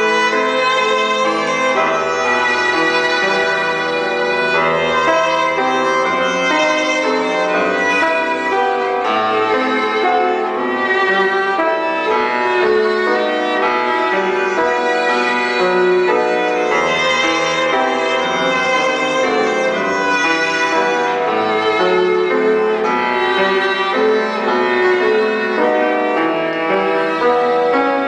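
Violin playing a melody, with lower accompanying notes beneath it.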